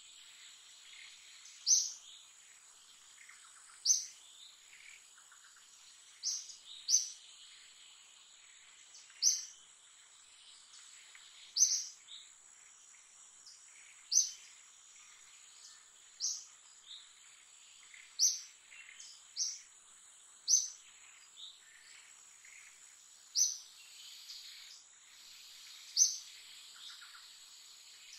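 Forest ambience: a short, high chirp repeats every two to two and a half seconds, sometimes as a quick pair, over a steady high insect drone.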